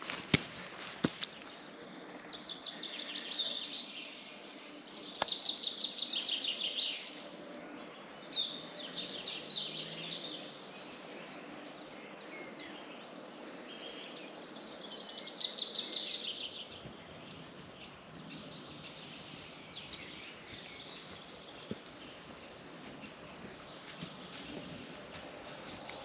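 Songbird singing short, rapidly trilled phrases of about two seconds each, four loud ones in the first sixteen seconds and fainter calls after, over steady outdoor background noise. A few footsteps are heard in the first second.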